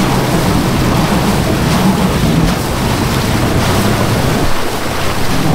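Wind rushing over an unshielded camera microphone, with an off-road vehicle's engine running low underneath.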